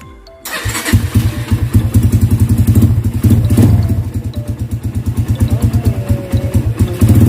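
A Honda XLR200R motorcycle's single-cylinder four-stroke engine comes in suddenly about half a second in and runs with a rapid, uneven pulse of firing strokes.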